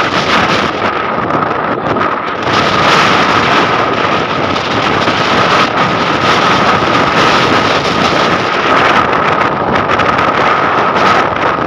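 Strong wind buffeting the microphone: a loud, steady rush of noise with a steady high tone running through it.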